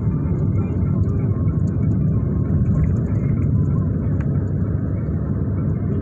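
Steady low rumble of a moving vehicle driving along: engine, road and wind noise heard from on board.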